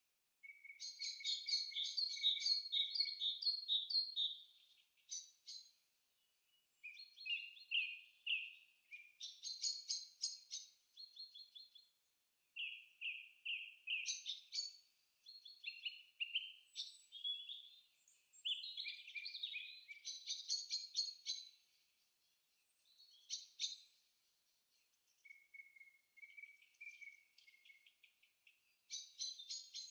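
Small songbirds chirping and trilling in quick, high-pitched phrases, one run after another with short pauses between.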